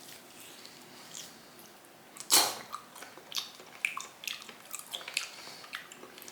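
A person chewing raw meat with their mouth close to the microphone. There is one sharp wet smack a little over two seconds in, then a run of irregular soft clicking and squishing mouth sounds.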